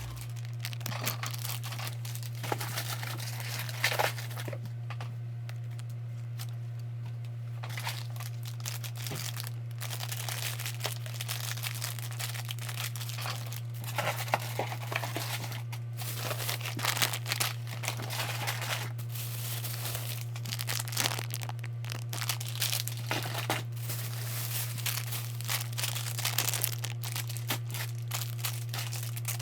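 Packaging being handled in a small room: repeated crinkling, rustling and tearing, busier in the second half, over a steady low hum.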